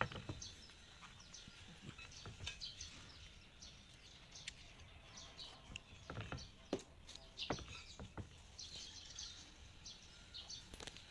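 Small birds chirping on and off, with a handful of sharp knocks and clicks scattered among them.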